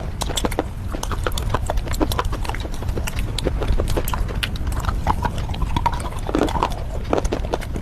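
Mouth chewing and crunching red slate bars with clay paste: a dense run of sharp, irregular cracks and crackles over a steady low rumble.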